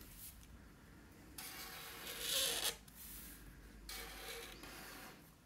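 Felt-tip marker drawn across paper in long strokes, a faint scratchy hiss. One stroke of over a second begins about one and a half seconds in, and a shorter one about four seconds in.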